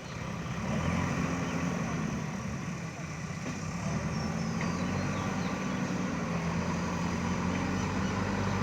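Diesel engine of a JCB backhoe loader running steadily at a low, even pitch.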